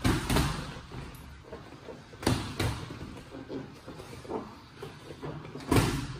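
Boxing gloves landing punches in sparring, a series of sharp smacks. There is a quick pair at the start, another pair about two seconds in and the loudest single hit near the end, with fainter knocks between.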